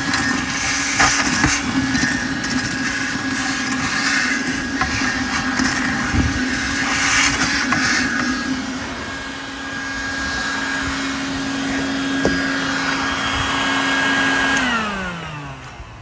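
Wet/dry shop vacuum running with a steady drone as it sucks pieces of cinnamon-toast cereal up its hose, with a rattle of clicks as the bits go through for the first half. Once the bucket is clear it runs on smoothly. Near the end the motor is switched off and its pitch falls as it winds down.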